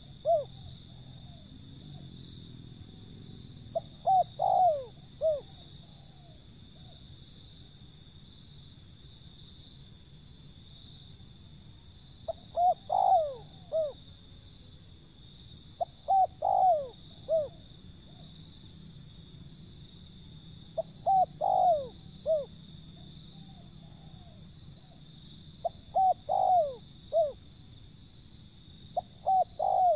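Spotted dove (tekukur) cooing: a short phrase of a few low coos repeated about every four to five seconds. A steady high-pitched hum and faint high chirps run underneath.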